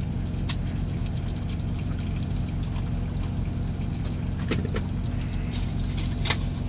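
Steady low hum of a semi truck's engine idling, heard inside the cab. A few sharp clicks come over it as eggs are cracked into an electric skillet: one about half a second in, two close together past the middle, and one near the end.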